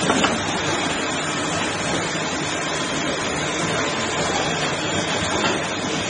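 Metal-machining equipment, such as automatic lathes, running steadily, giving a dense, even mechanical noise. There is a short knock just after the start.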